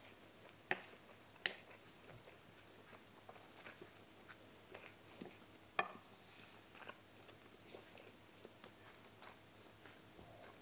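Quiet eating: wooden spoons scooping rice from a ceramic plate, with faint chewing. There are a few sharp clicks of spoon on plate, two in the first second and a half and the loudest about six seconds in.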